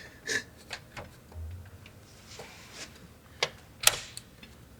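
Light clicks and taps of a graphics card being fitted into a PC case and seated in its slot, a few separate sharp clicks with the loudest one near the end.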